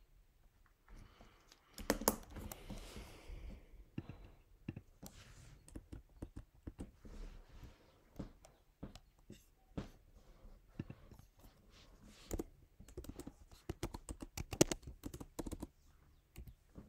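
Typing on a keyboard: irregular key clicks, with a brief rustle about two seconds in and a faster flurry of keystrokes near the end.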